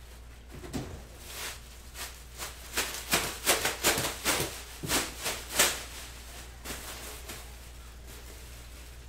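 Trading-card box packaging being handled: a quick run of crinkling, scraping rustles and light taps, busiest in the middle and lasting about six seconds.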